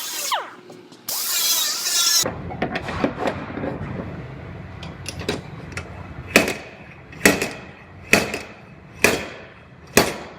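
Slide hammer pulling on a tab welded to a dented quarter-panel dog leg: sharp, ringing knocks at a steady pace of about one a second, six in the second half. A short burst of hissing noise comes about a second in.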